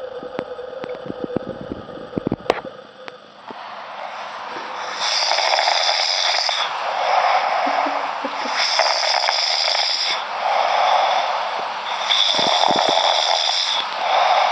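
A person snoring loudly in a regular rhythm, one hissy breath and then a lower, rougher one, the cycle repeating about every three and a half seconds. The snoring starts a few seconds in, after some faint clicks.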